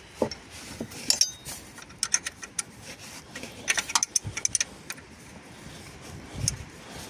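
Metal spanner clinking and ticking on the auxiliary-belt tensioner pulley nut as it is tightened, in irregular clusters of sharp clicks.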